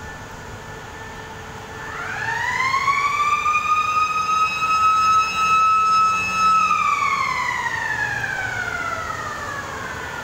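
Motor-driven siren winding up: one long wail that rises in pitch over about two seconds, holds steady, then winds slowly down through the second half.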